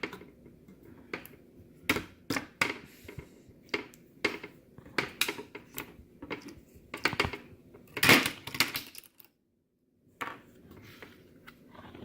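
Irregular clicks, taps and knocks of small hard parts being handled on a workbench, with the loudest clatter about eight seconds in.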